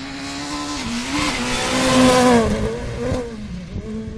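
Rally car engine revving hard as the car comes close and passes, loudest about two seconds in. The engine pitch rises and dips with throttle and gear changes, then falls as the car goes away.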